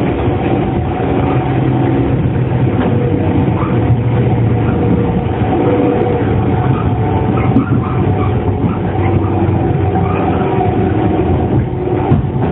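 JR 115-series electric multiple unit motor car running on the rails: steady wheel and rail noise with the hum of its traction motors and gearing.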